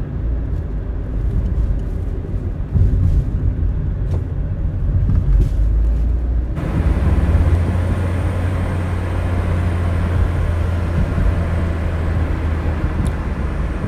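Car driving up a paved mountain road, heard from inside the cabin: a steady low rumble of engine and tyres. The road noise changes about six and a half seconds in, becoming a more even hum.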